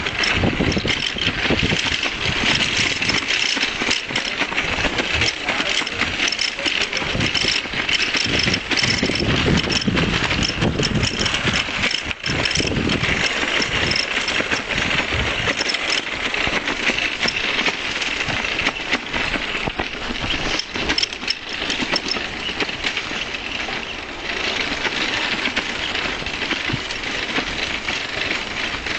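Continuous rattling and road noise from a bicycle being ridden along a city street, full of small knocks and clatters.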